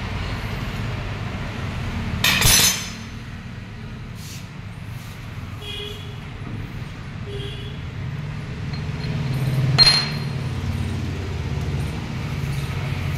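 Bolts on a tractor's front ballast weight being loosened with a ratchet wrench: a short rasping burst of the ratchet about two and a half seconds in and a sharp metal clink near ten seconds, over a steady low hum.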